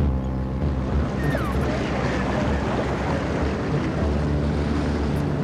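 Boat engine running steadily under the rush of rough sea and wind buffeting the microphone.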